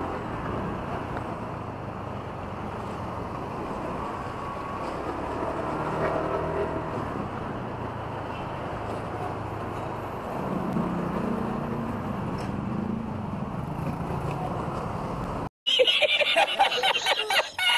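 Honda Click 125 scooter engine running steadily while riding through city traffic, with road and traffic noise. About fifteen seconds in the sound cuts abruptly to a louder, busier recording with voices.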